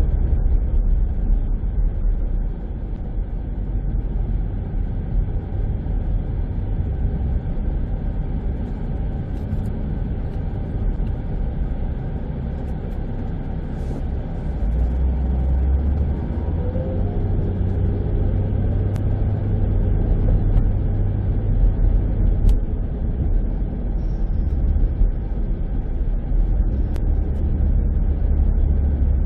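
Car being driven on a city road: a steady low rumble of engine and tyre noise.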